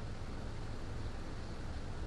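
Steady background hiss with a low hum underneath: the recording's microphone noise and room tone, with no distinct sound events.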